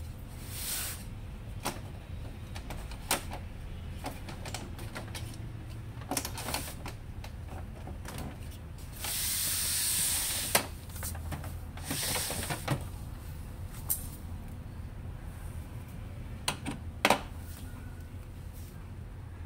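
Scattered plastic clicks and knocks from the casing and scanner lid of an HP LaserJet M26a laser printer being opened and handled, with a brief hissing noise about halfway through and a shorter one just after.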